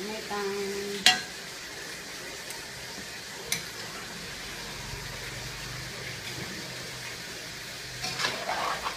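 Chopped turkey in tomato sauce sizzling in a stainless steel pan while a metal spoon stirs it. The spoon clinks sharply against the pan about a second in and again halfway through, and there is a burst of louder stirring near the end.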